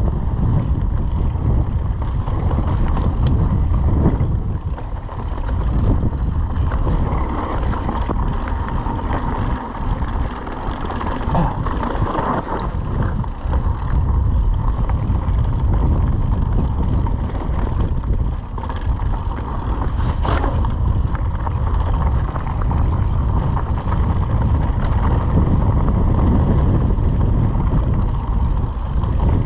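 Mountain bike ridden fast down a dirt trail: a steady rumble of wind buffeting the camera microphone, with knocks and rattles from the bike over rough ground and a louder knock about twenty seconds in.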